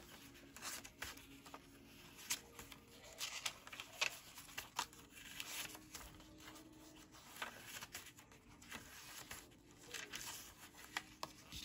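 Paper pages of a handmade junk journal being turned and handled by hand: repeated soft paper rustles and crinkles with light taps and flicks.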